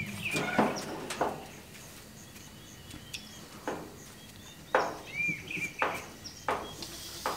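Stainless-steel gas grill lid lifted open with metal clunks, then kebab skewers set down one at a time on the metal grates, each a short clank, about half a dozen in all. A sizzle starts near the end as the meat hits the hot grate.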